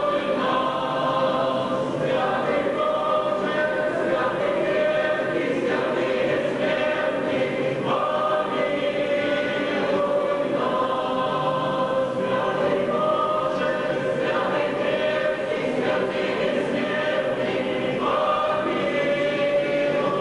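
Choir singing a slow hymn with long held notes.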